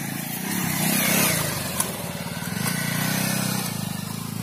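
Bajaj Pulsar motorcycle's single-cylinder engine revving up and down as the bike is ridden and swung around on grass, with a sharp click about two seconds in.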